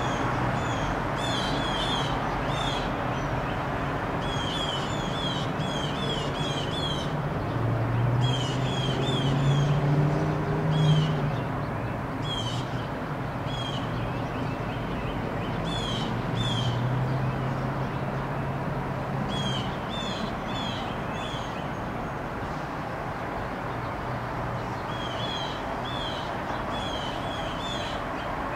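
Blue jays calling: short, sharp, high notes in quick runs of two to five, repeated throughout. Under them is a low background rumble that grows louder about eight seconds in and eases off around eleven seconds.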